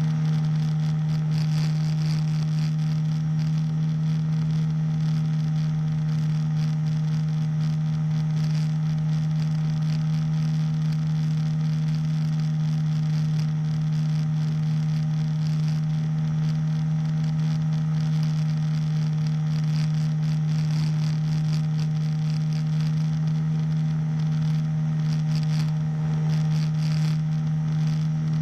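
Powered hang glider's engine running steadily at one constant pitch while the glider climbs, with wind rushing over the microphone.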